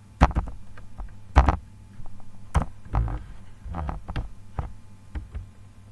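A string of irregular knocks and clicks close to the microphone, about eight or nine of them, some loud, the loudest about a second and a half in. A steady low mains hum lies under them.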